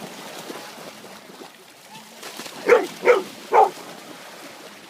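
A dog barking three times in quick succession, about half a second apart, over a low background of chatter and commotion.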